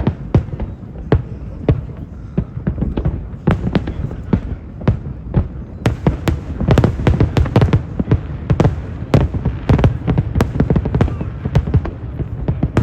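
Fireworks display: aerial shells bursting one after another, the bangs coming thicker and faster about halfway through.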